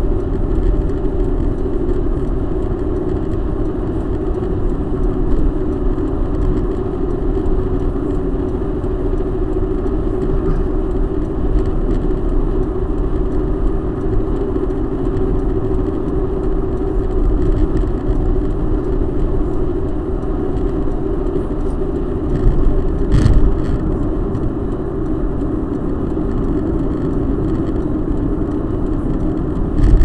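Steady road and engine noise of a car cruising at highway speed, heard inside its cabin, with one brief knock about two-thirds of the way through.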